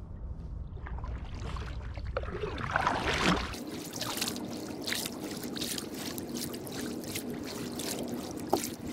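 Double-bladed kayak paddle stroking, the blades dipping and splashing on alternate sides about two to three times a second, with water trickling off the blades. A low rumble fills the first few seconds.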